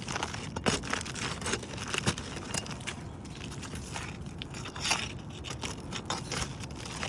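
Brittle laminated asphalt shingle being pried free from the nailing strip of the shingle above it: scattered cracking and scraping, with the loudest crack about five seconds in.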